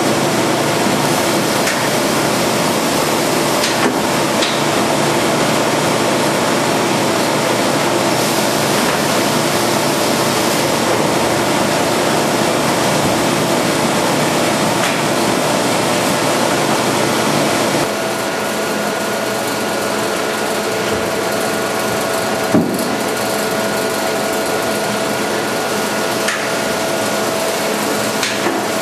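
VC999 automatic belt vacuum chamber packaging machine running: a steady mechanical whir and hiss. Partway through the noise drops a little and a steady hum comes in, and there are a couple of sharp clicks.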